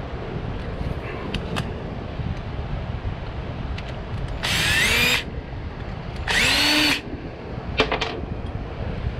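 Ridgid cordless drill/driver backing the screws out of an aluminium soft-plastic minnow mold to open it. It runs in two short bursts about a second apart, the motor's whine rising as it spins up, followed by a few sharp clicks near the end.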